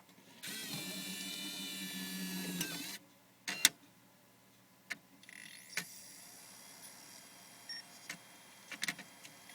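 Nintendo Wii slot-loading disc drive running: its motor whines steadily for about two and a half seconds, gives a sharp click, then the drive runs quietly with a few light clicks. There is no grinding, because the disc spindle no longer rubs its arm after the spindle magnet was re-centred.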